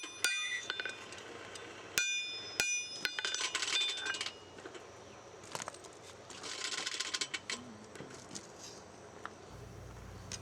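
Hammer strikes on steel at the anvil while forging a knife blade, each blow ringing with a bright metallic tone. A few spaced single blows come first, then two quick runs of lighter clattering taps.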